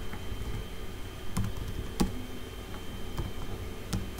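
Computer keyboard typing: a handful of scattered key clicks, the loudest about two seconds in, over a faint steady hum.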